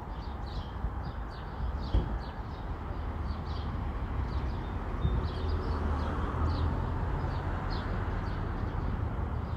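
Songbirds chirping, a quick run of short falling calls repeated all through, over a low steady rumble.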